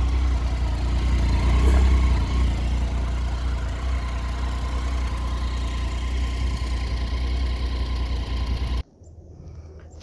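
Triumph Tiger 800 XR motorcycle's three-cylinder engine running with a steady low rumble. About nine seconds in, the sound cuts off abruptly to a much quieter outdoor background.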